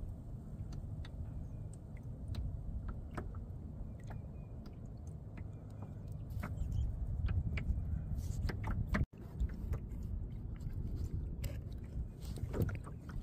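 Wind rumbling on the microphone over water lapping against a kayak hull, with scattered light ticks and splashes. The sound cuts out for an instant about nine seconds in.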